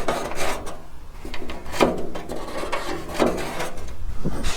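Several irregular scraping and rubbing strokes on sheet metal, as a replacement VW Beetle package tray panel is worked and test-fitted.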